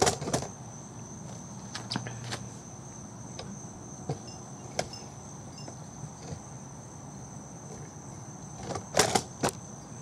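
Steady high-pitched chirring of crickets, with scattered sharp clicks throughout and two louder clicks about nine seconds in.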